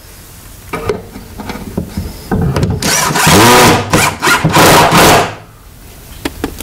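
Cordless drill driving screws through a piano hinge into a wooden cabinet. The motor runs in several short spurts about halfway through, speeding up and slowing with the trigger, after a few knocks of handling.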